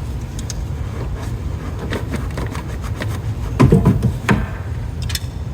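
LED headlight bulb being worked into a pickup truck's headlight housing: rubbing and small clicks of the bulb against the housing, with a louder scraping patch a little past halfway, over a steady low rumble.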